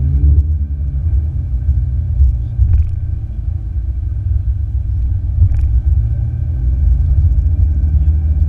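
Ferrari 488 GTB's twin-turbo V8 and road noise heard from inside the cabin while driving: a steady deep rumble at an even, light-load pace, with a faint thin whine above it.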